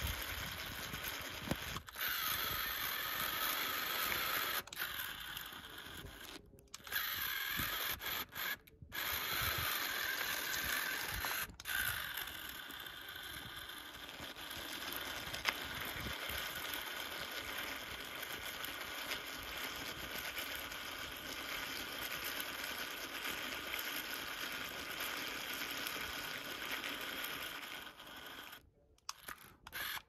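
Small electric drive motor and gearbox of a remote-control Swaraj 855 FE toy tractor whirring under strain as it tries to pull a trolley loaded with soil out of sand, rear wheels digging in. The whirr stops briefly several times and starts again. The tractor is struggling on a low battery.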